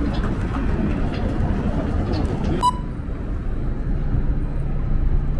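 City street ambience: a steady low rumble of traffic, with a brief sharp click about halfway through.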